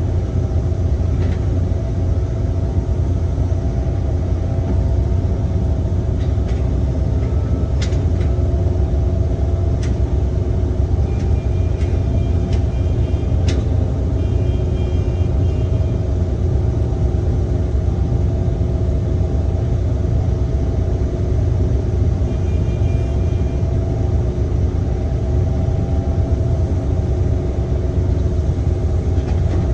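Excavator's diesel engine running under load with a steady low rumble. A few sharp metallic knocks come about a third of the way in, and short high-pitched beeps sound twice.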